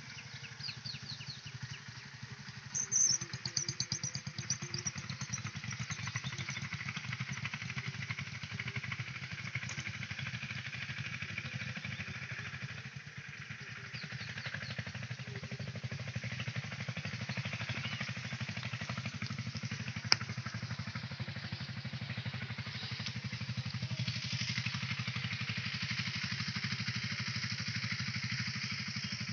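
A steady low engine-like drone with a rapid pulsing texture runs throughout, with a cluster of short high chirps about three seconds in, one sharp click about twenty seconds in, and more high chirping near the end.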